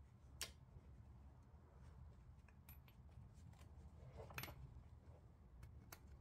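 Faint clicks and light metal taps of brake pads being fitted into a Brembo brake caliper by gloved hands, over near silence: a single click about half a second in, a short cluster about four seconds in, and another click near the end.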